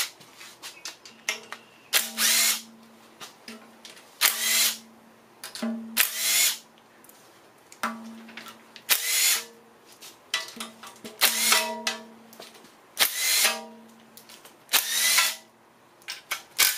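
Cordless impact driver backing out the oil pan bolts of a Honda K24A engine, firing in short bursts every second or two as it loosens one bolt after another.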